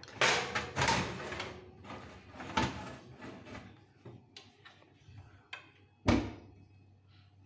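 Metal roasting tray scraping along the oven rack as it is slid into an oven, with a few clinks of metal, then the oven door shut with a loud thump about six seconds in.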